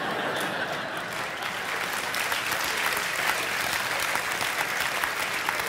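Theatre audience applauding, a dense, steady run of many hands clapping in response to a joke.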